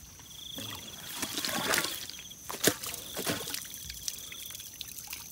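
Water trickling and dribbling as a blue plastic-pipe eel trap is lifted out of the marsh water, with one sharp click about two and a half seconds in. Crickets chirp in a steady pulsed trill.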